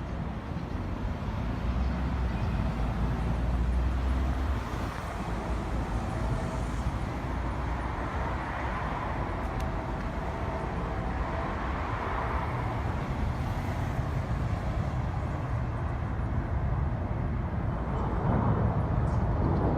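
Steady vehicle rumble and road noise, the low rumble heaviest in the first few seconds. A train horn starts sounding at the very end.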